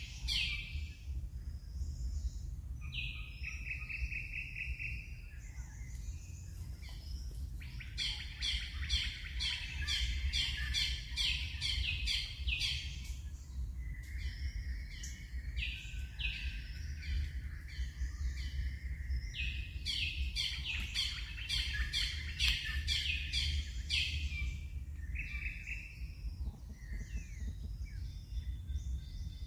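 Birds chirping and singing in quick runs of repeated high notes, with short pauses between runs, over a steady low rumble.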